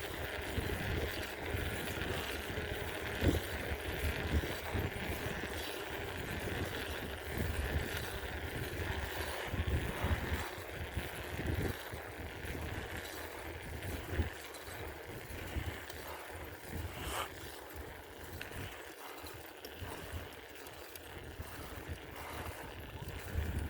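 Wind rumbling on the microphone and road noise while riding a bicycle, with a few scattered knocks and rattles from the bike.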